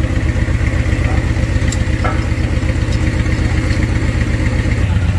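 A large engine idling steadily, with an even low throb, and a brief knock about two seconds in.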